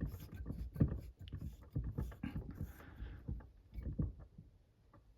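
Irregular light knocks, bumps and rustling of handling in the cupboard under a kitchen sink, just after the cold-water isolation valve is turned off, dying away near the end.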